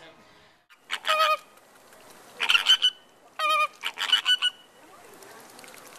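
Flamingos honking: several loud calls in four quick bursts, between about one and four and a half seconds in.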